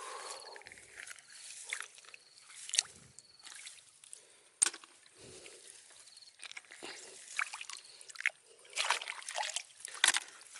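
Water sloshing and splashing in irregular bursts, mixed with sharp clicks and knocks, the loudest about halfway through and near the end; a denser run of splashing comes late on.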